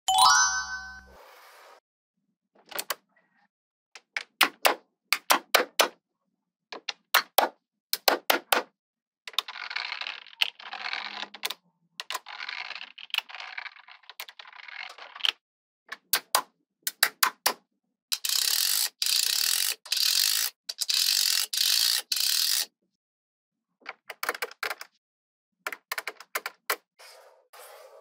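Small neodymium magnetic balls clicking and snapping together in quick clusters as rows are pressed into place, with stretches of rattling and rustling as loose balls are moved about, loudest a little past the middle. A short chime rings right at the start.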